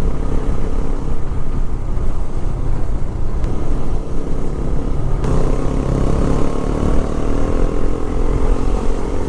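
Motorcycle engine running under way while riding, with a steady low rumble; the engine note steps up about halfway through.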